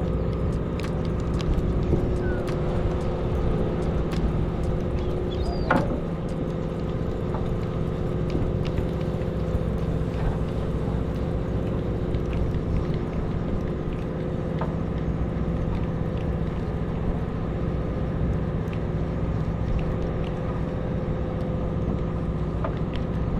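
Fishing boat's engine running steadily, a low hum with several steady tones, with a few faint clicks and one brief sharp knock about six seconds in.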